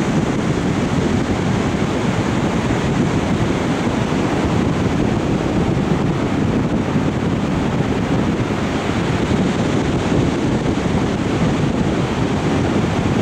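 Wind blowing across the camera microphone: a steady, loud rushing rumble with no break.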